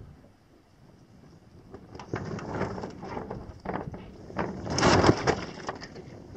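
Water sloshing and splashing against a boat's hull, in uneven rushes of noise that start about two seconds in and are loudest near the five-second mark.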